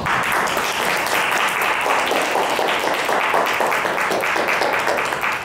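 Audience applauding steadily, many hands clapping at once, breaking out suddenly and lasting about five seconds.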